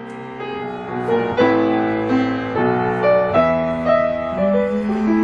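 Grand piano playing an instrumental passage, chords with a melody on top, getting louder about a second and a half in.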